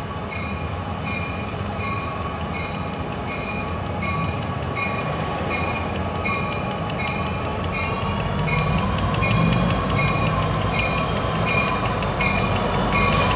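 EMD SD60 diesel locomotive approaching with its train, its engine rumble growing steadily louder, while a bell rings steadily at about one and a half strokes a second. About two-thirds of the way through, a high whine rises in pitch and then holds.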